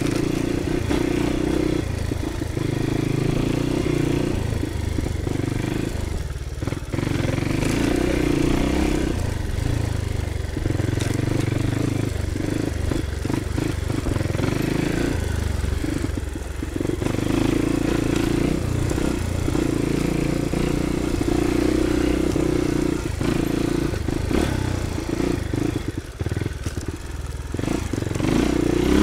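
Crossfire 250 dirt bike's engine running while the bike is ridden over a rough dirt trail. The engine note holds steady and dips briefly about three times, with some clatter from the bike over the bumps.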